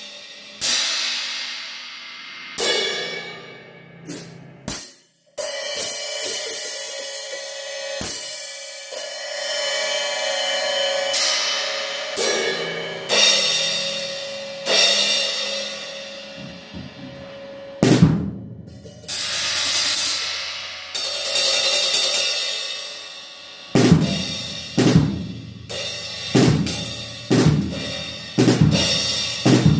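Drum kit played loosely to try out a new Wuhan Western Series 12-inch splash cymbal: single cymbal strikes, each left to ring out and die away. Over the last six seconds or so the hits come faster, with bass drum underneath.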